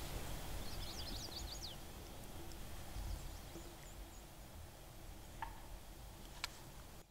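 Quiet woodland background with a steady low rumble. A small bird gives a quick burst of high chirps about a second in and a few fainter notes after, and there are two faint clicks near the end.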